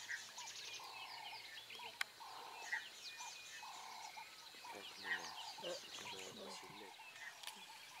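Bush ambience: a low croaking call repeats roughly once a second, with birds chirping higher up.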